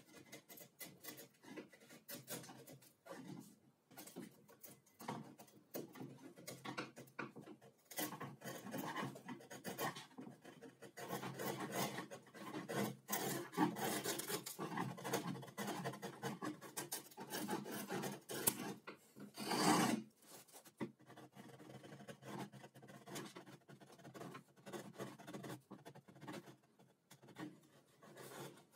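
Chisel scraping and paring wood out of a saw-cut groove, curling off shavings in a quick, irregular run of short scraping strokes, with one louder stroke about two-thirds of the way through.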